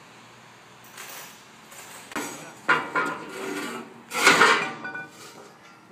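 Metal clanking and rattling: a string of sharp knocks with a ringing tail, the loudest a little past four seconds in.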